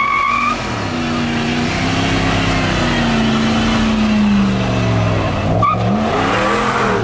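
Pickup truck doing a burnout: the engine is held at high revs that climb, hold, sag and climb again, over the hiss of a spinning rear tyre. A short squeal sounds at the start and another shortly before six seconds in.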